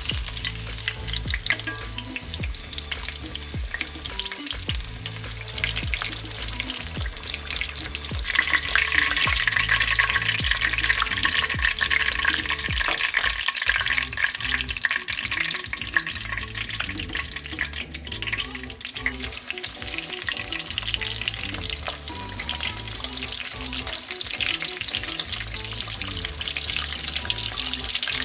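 Croquettes deep-frying in hot oil, a steady dense crackle and sizzle that grows louder about eight seconds in.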